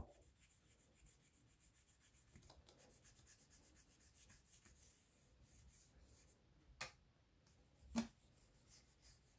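Faint rubbing of a small track-cleaning pad, wetted with Autosol polish, along the nickel-silver rails of a 00-scale model railway point, cleaning the rail tops and point blades. Two light clicks come a little over a second apart in the second half, the second the louder.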